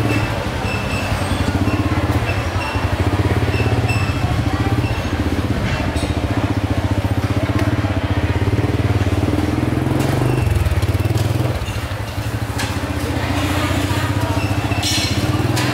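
A small engine running steadily, a low pulsing hum like a motorcycle engine at low revs, easing briefly about twelve seconds in.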